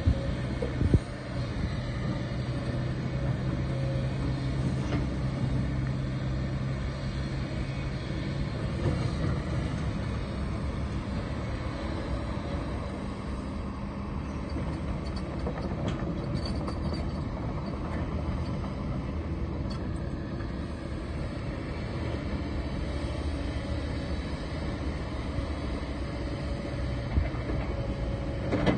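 Kobelco SK140 excavator's diesel engine running steadily under hydraulic load as the machine dumps, swings and digs. In the first second there are a few sharp knocks as rock drops from the bucket into the dump truck's bed, and the engine's low hum eases slightly about eight seconds in.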